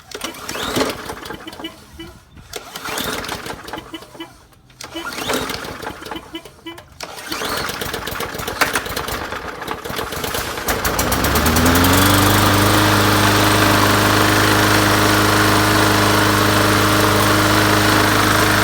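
Bolens MTD push mower's Briggs & Stratton 450e Series 125cc engine being pull-started: several uneven pulls of the recoil starter, then it catches about eleven seconds in and runs steadily at speed.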